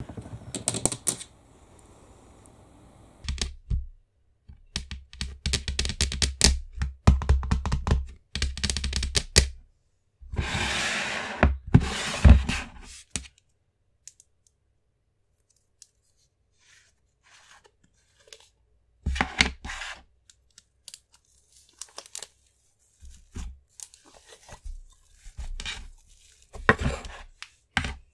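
Hands playing with thick white slime and handling its plastic jar: crackling, tearing and clicking sounds in separate bursts, the longest a rustling stretch about ten seconds in, with a quiet spell in the middle.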